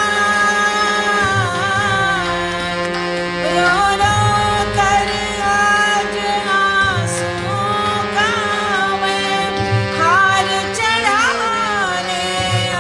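Devotional bhajan music: an ornamented melody with gliding notes over a steady held drone, with a drum beating every second or two.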